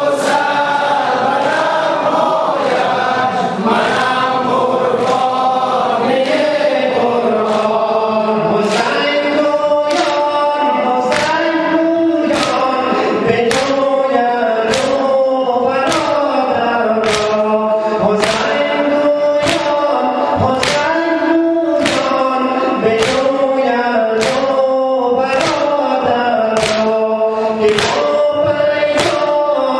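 Large group of men singing a Shia mourning lament (noha) in unison, the melody rising and falling. About eight seconds in, rhythmic chest-beating (sina zani) joins the singing: hand slaps landing together roughly once a second.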